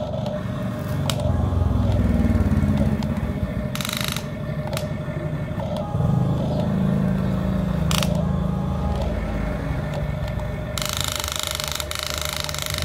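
Huina radio-controlled model excavator's electric motors and gearboxes whirring as the boom and bucket move, swelling louder twice. A few short bursts of noise break in, the longest near the end.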